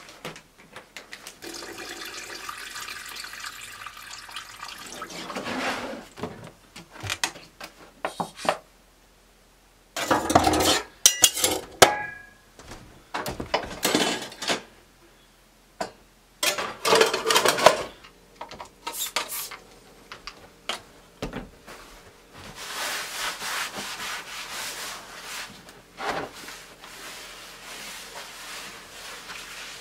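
Dishes and gear being handled and packed up: scattered clatters and knocks with rubbing and rustling between them, falling nearly silent twice for a moment.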